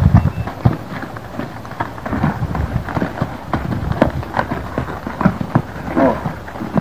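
Horse's hooves thudding and scuffing in deep loose sand as it side-passes under a rider: many irregular steps in quick succession.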